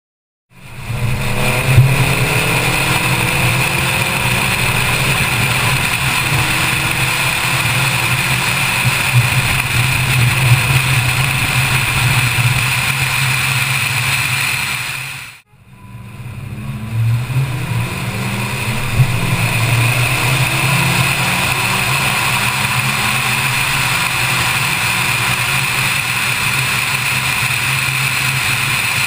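Mazdaspeed3's turbocharged 2.3-litre four-cylinder running at highway speed with steady road and wind noise. The engine pitch climbs as the car accelerates in the first several seconds and again shortly after a brief fade-out about halfway. A steady high whine runs over it.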